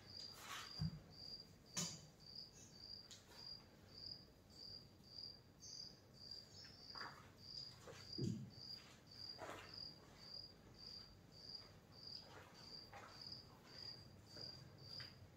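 Faint cricket chirping steadily, one short high chirp just under twice a second, with a few soft knocks and rubs in between.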